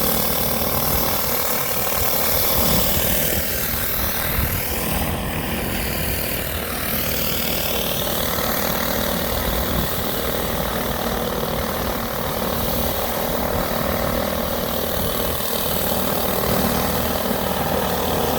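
Engine-driven pressure washer running steadily, with the continuous hiss of a surface cleaner spraying hot water across a pool deck.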